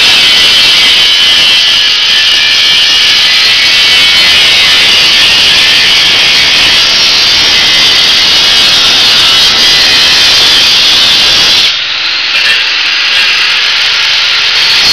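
A 4.5-inch, 600-watt angle grinder cutting metal square tubing: a loud, steady grinding hiss, easing off briefly about twelve seconds in before the disc bites into the cut again.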